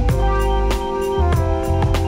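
Background music with a steady drum beat and held instrumental notes.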